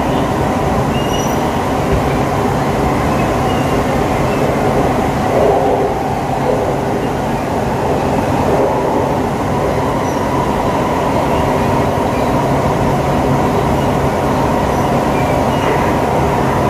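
Cabin noise of an SMRT C651 metro train running at steady speed through a tunnel: a continuous rumble of wheels on rail with steady tones over it.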